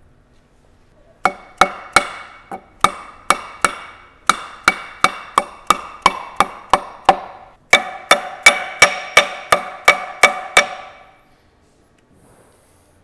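A hammer strikes a steel driver ring about 25 times, roughly three blows a second with a short pause partway, driving a press-in cover cap into the aluminium housing of a Volkswagen Golf five-speed gearbox. Each blow rings briefly.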